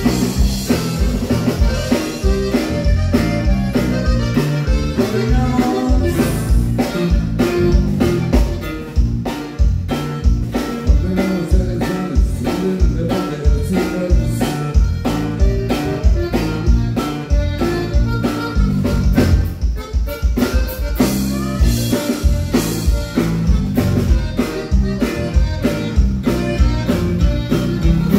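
Live conjunto band playing a Tex-Mex polka: accordion, electric bass and acoustic guitar over a steady beat.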